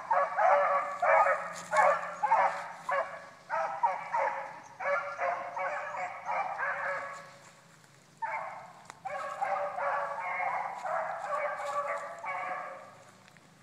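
Three young derby beagles baying while running a rabbit's track: a dense string of overlapping bays, breaking off for a moment past the middle and then picking up again.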